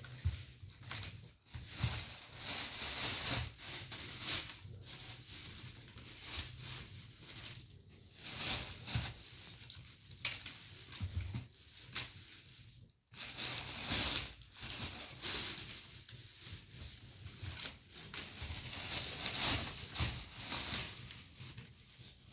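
Plastic bags crinkling and rustling as oranges are handled and moved from a plastic crate into a bag, in irregular bursts with soft knocks of fruit.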